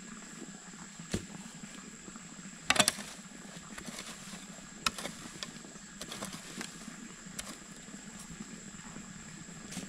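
Scattered sharp knocks and clicks, the loudest a quick cluster of them about three seconds in, over a steady high whine and a low hum.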